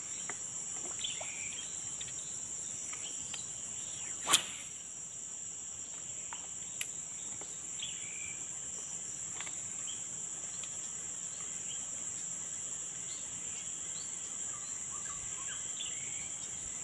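Steady high-pitched drone of insects, with one sharp click about four seconds in and a fainter click a couple of seconds later.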